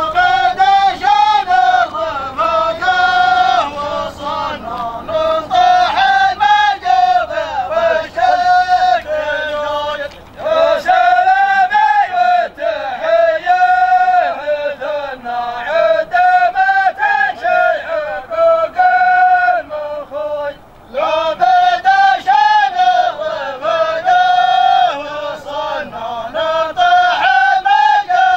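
A group of men's voices chanting a melodic Arabic welcome song together, line after line, with short breaks between verses about ten and twenty seconds in.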